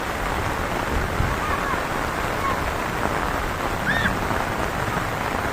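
Heavy rain pouring down steadily, a dense even hiss, with a few short faint chirps heard over it.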